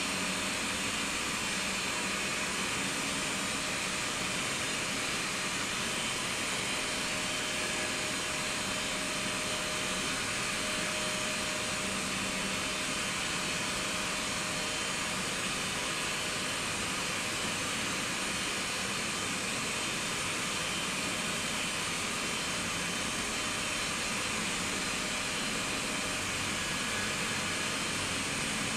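Service lift descending inside a Vestas V80 wind-turbine tower: its electric hoist runs with a steady hissing whir and a faint low hum.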